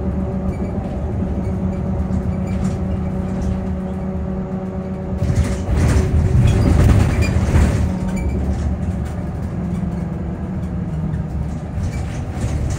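Electric bus traction motor whining in several steady tones over low road rumble and small rattles, heard inside the passenger cabin. The rumble swells louder for about two to three seconds midway.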